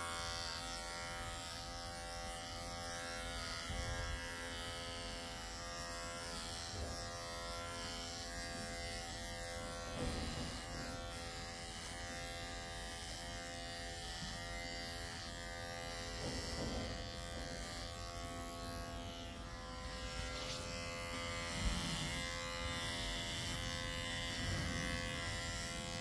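Electric horse clippers running with a steady buzz while clipping a horse's coat.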